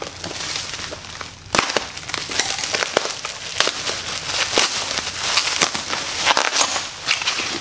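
Bubble wrap being crinkled and pulled apart by hand, a dense run of sharp crackles and rustling that gets louder and busier about a second and a half in.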